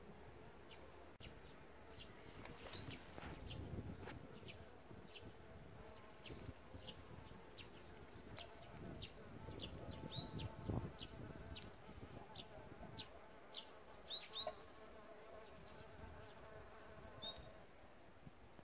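Bees buzzing in flight, the hum fading in and out, over a bird giving short high chirps about once or twice a second.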